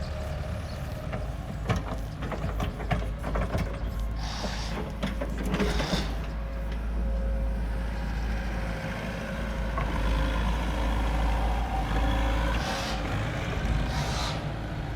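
A heavy diesel engine on site machinery running steadily, with a run of metallic clanks a couple of seconds in and several short hisses.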